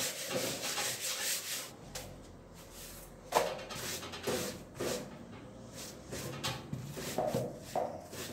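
Dry, freshly baked yufka sheets being folded and smoothed by hand on a metal sac griddle: irregular papery rustling and rubbing strokes, with one sharper crackle about three seconds in.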